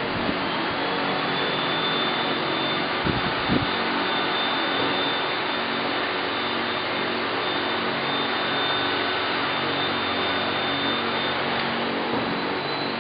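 A handheld hot-air heat gun running, blowing steadily with a high whine that starts just after the beginning and stops near the end. There are a couple of low bumps about three seconds in.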